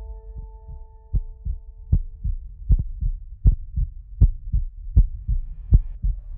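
Heartbeat sound effect: low double thumps, a strong beat then a weaker one, about 80 times a minute, starting about a second in. Over the first two seconds a held musical chord fades out.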